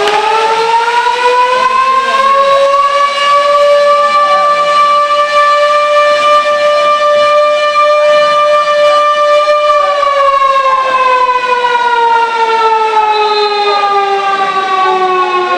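A siren winds up to a loud, steady wail, holds it for about seven seconds, then winds slowly down in pitch over the last five seconds.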